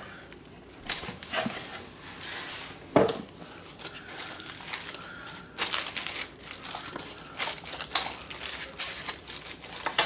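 Plastic wrapping crinkling and rustling as a lock's plastic-wrapped parts are handled and their foam packing inserts pulled off, with scattered small clicks. A single sharp knock about three seconds in is the loudest sound.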